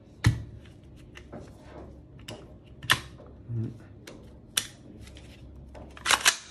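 Sharp clicks and knocks of a Tokyo Marui M4A1 MWS gas blowback airsoft rifle being handled as its hinged-open upper and lower receiver are pressed back together and parts snap into place. There is a loud click about a quarter second in, another near three seconds, and a quick run of clicks near the end.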